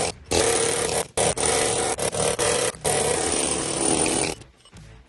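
Cutting torch blowing through a worn bushing in a dozer ripper box: a loud, steady hiss with several brief breaks, stopping about four and a half seconds in.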